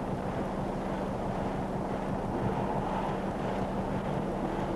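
Steady rush of whitewater rapids mixed with wind noise on the microphone, under a constant low hum.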